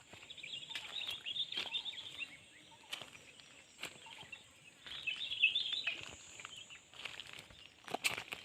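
Outdoor ambience with short bursts of bird chatter, a steady faint high whine, and scattered clicks.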